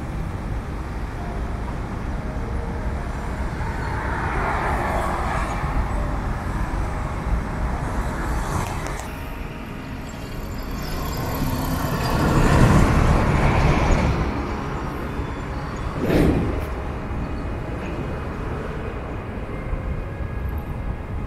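Road traffic on a city street: a steady low rumble, swelling as vehicles pass about four seconds in and again more loudly about twelve seconds in, with a short sharp sound a few seconds later.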